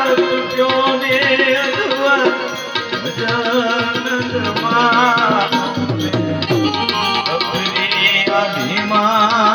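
Instrumental passage of a Gujarati folk bhajan: tabla keeping a steady rhythm under a wavering melody on an Indian banjo (bulbul tarang).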